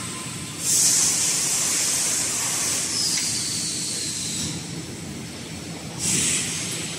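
Compressed air hissing in bursts at a wax pattern injection station: a long blast starting about half a second in that tails off over several seconds, then a short blast near the end, over a steady low hum of workshop machinery.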